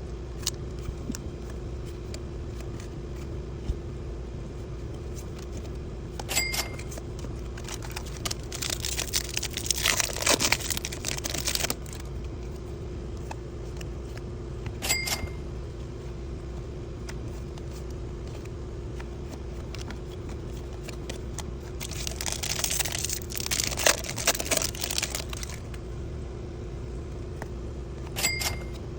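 Foil wrapper of a baseball card pack crinkling and cards being handled in two rustling spells, over a steady low hum, with a few short clicks.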